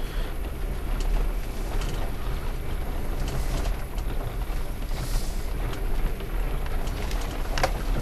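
Car driving slowly, heard from inside the cabin: a steady low engine and road rumble with a few faint clicks and rattles.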